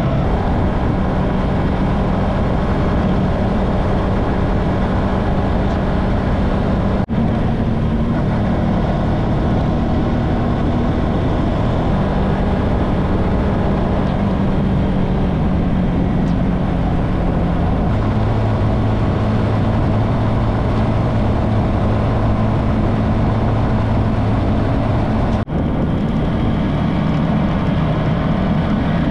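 Motorcycle engine running at cruising speed under heavy wind and road noise, its note stepping up and down in pitch a few times. The sound drops out for an instant twice.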